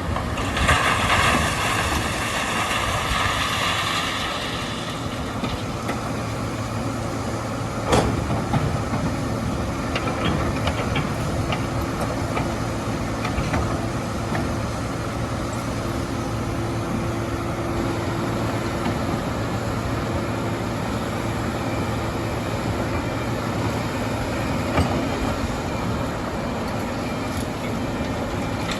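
Heavy excavator and truck diesel engines running, with a high whine over the first few seconds and one sharp bang about eight seconds in.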